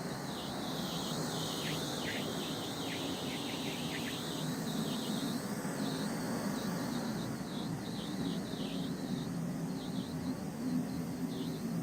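Steady, unbroken mechanical hum with a constant high hiss.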